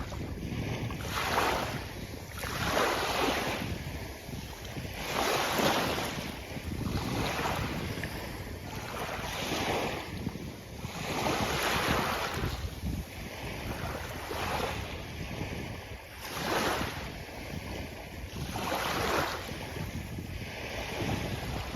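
Sea waves breaking on a beach: surf washing in and falling back in repeated swells every two to three seconds.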